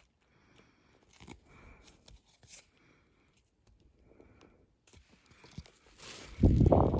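Handling of a plush toy and its cardboard box, with soft rustling and small clicks, then a louder scuffing rub near the end.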